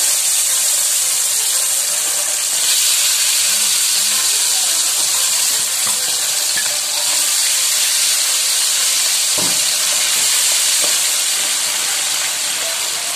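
Battered catfish pieces deep-frying in hot oil in a wok, a loud steady sizzle, with a soft knock partway through.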